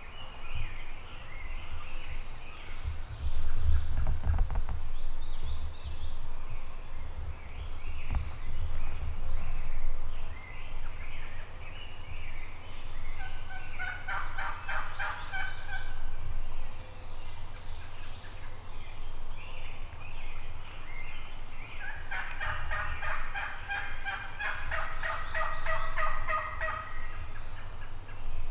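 Wild turkey gobblers gobbling twice, a rapid rattling gobble about halfway through and a longer one in the last third. Small birds twitter throughout, and a low rumble comes and goes.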